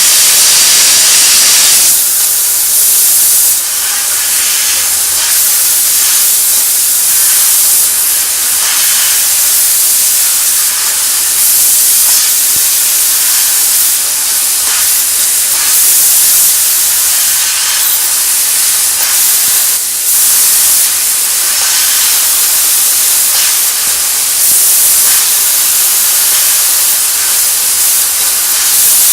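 Prima Power fiber laser cutter cutting 8 mm steel plate: a loud, steady, high-pitched hiss of the gas jet at the cutting head, its tone shifting briefly every few seconds.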